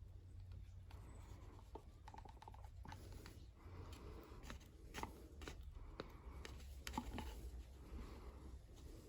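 Faint taps, clicks and light scraping from handling plastic mixing cups and a stirring stick while mixed epoxy resin is split between cups, over a low steady hum.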